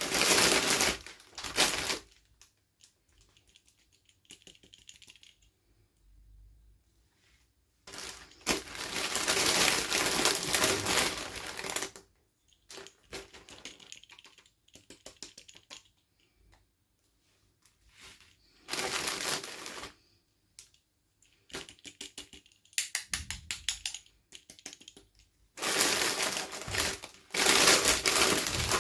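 Hands opening toy packaging: bursts of rapid crackling and clicking plastic, four loud spells with fainter clicks and rustles between them.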